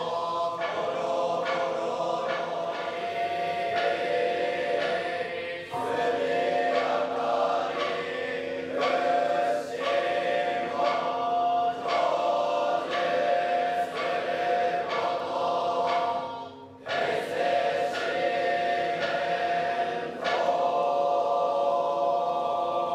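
Chorus of Nichiren Buddhist monks chanting in unison in long held notes, with a faint regular knock about once a second. The chant breaks off briefly twice.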